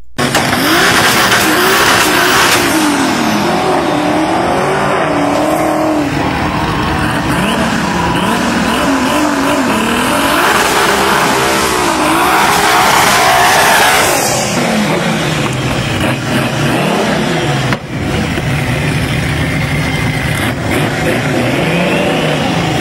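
The twin turbocharged VR6 engines of a twin-engine VW Golf drag car revving hard, the pitch swinging up and down in quick cycles, with the tyres squealing through the first fourteen seconds. After that the engines drop to lower, uneven revving.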